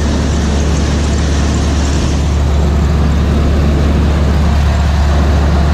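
John Deere 3300 combine running steadily: a loud, even engine drone with a strong low hum and no change in speed.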